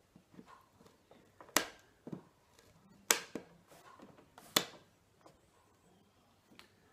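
Staples being pried out of a wooden chair seat board with a small hand tool: three sharp metal-on-wood clicks about a second and a half apart, with fainter ticks and scrapes between them.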